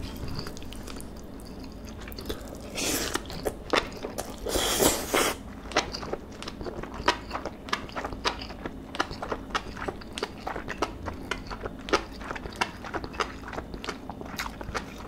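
Close-miked eating sounds: a mouthful of marinated beef bulgogi and rice being taken in and chewed, with two louder noisy sounds about three and five seconds in, then quick, wet chewing clicks several times a second.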